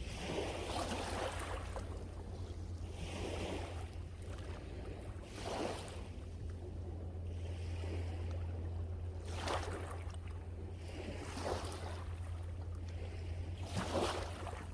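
Sea waves breaking and washing in, a rush every two or three seconds, over a steady low wind rumble on the microphone.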